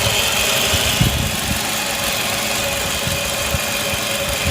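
Toyota Camry 2.5-litre four-cylinder engine idling roughly with uneven low pulsing, the car shaking from misfires mainly on cylinders 1 and 2. The mechanic has ruled out ignition and suspects a loose timing chain or the computer not commanding the exhaust VVT solenoid.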